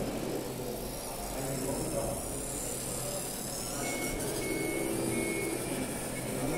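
Radio-controlled 1:14 scale Piaggio Ape 50 model driving past, its drive motor and gearing running steadily. A faint, broken high whine comes in about four seconds in.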